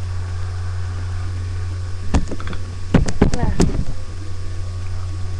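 Steady low electrical hum, with a short cluster of sharp clicks and knocks from about two to four seconds in, in the middle of handling trading cards.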